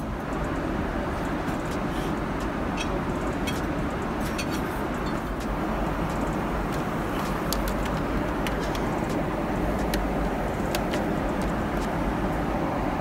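Steady cabin noise inside a Boeing 777-300ER airliner: an even, low rush of engine and airflow noise, with a few faint clicks scattered through it.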